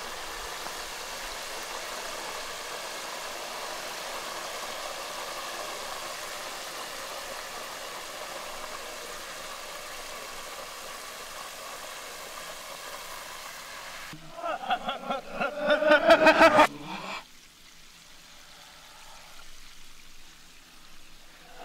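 Steady hiss of hot oil sizzling in a deep pot as a whole chicken is fried, played in reverse. About fourteen seconds in it stops and a short burst of men's voices follows for about three seconds.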